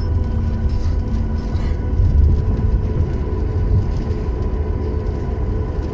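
Steady low rumble heard inside the cabin of a Boeing 737 MAX 8 rolling on the ground after landing, with faint steady tones of its engines at low power running through it.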